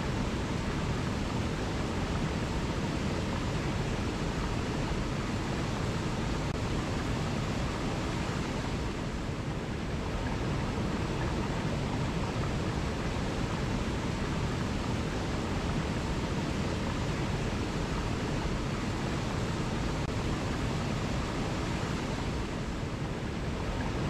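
Small forest waterfall cascading over boulders into a pool: a steady, unbroken rush of falling water.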